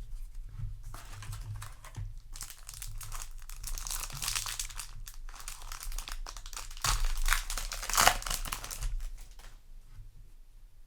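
Foil Yu-Gi-Oh! booster pack wrapper crinkling and being torn open by hand: a dense crackle, loudest about two-thirds of the way through, that dies away near the end.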